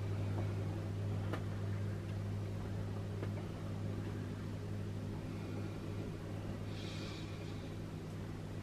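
Steady low mechanical hum, with a couple of faint ticks and a brief soft hiss about seven seconds in.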